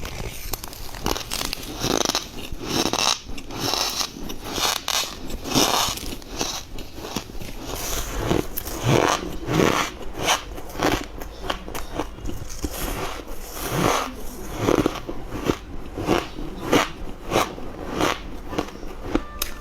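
Ice being bitten and crunched between the teeth, bite after bite, with sharp crackling breaks several times a second. The ice is the squeaky kind: dense, hard ice that squeaks as the teeth press into it.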